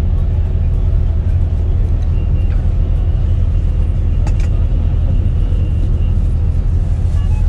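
Intercity coach's engine idling, a steady low rumble heard from inside the cabin.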